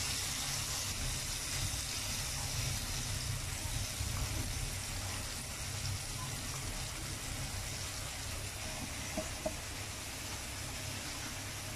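Batter-coated chicken wings frying in hot oil in a pan: a steady sizzle, with a low rumble underneath and a couple of light clicks near the end.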